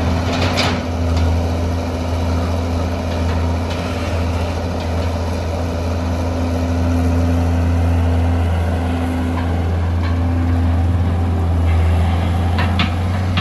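Hitachi EX200 excavator's diesel engine running steadily with a deep low drone, with a sharp knock about half a second in and several more near the end.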